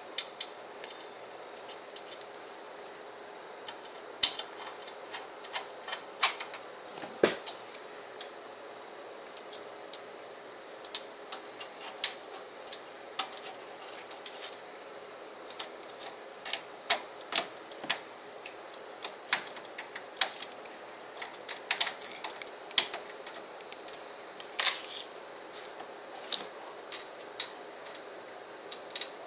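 Irregular sharp metallic clicks and taps of a screwdriver and screws working against a PC case while the power supply is screwed in place.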